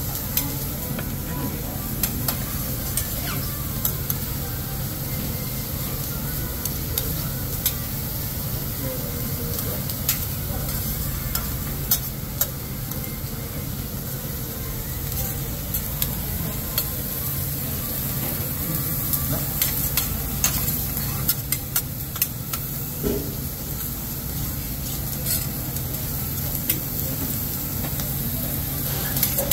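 Food sizzling on a steel teppanyaki griddle, over a steady low hum. The chef's metal spatula scrapes and clicks against the flat-top at irregular moments throughout.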